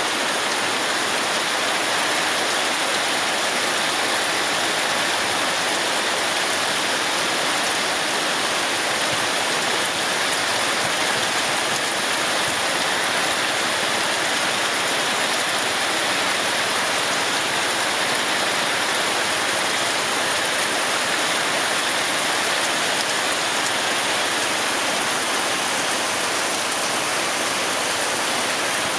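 Heavy rain falling steadily on rice paddies and surrounding vegetation, a dense, even hiss that does not let up.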